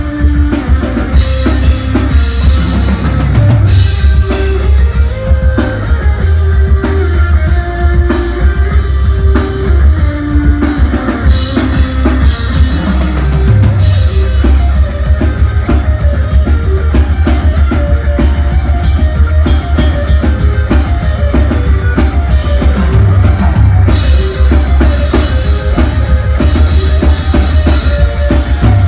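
Live rock band playing loudly, with busy drum kit and bass drum under guitars and sustained low notes; a sliding note drops in pitch three times, about ten seconds apart.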